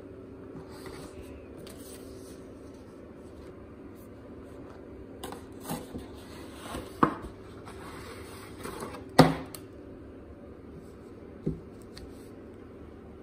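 Hands handling a cardboard pie box and paper coffee filters on a metal baking tray: paper and cardboard scuffing with a few sharp knocks, the loudest about nine seconds in, over a faint steady hum.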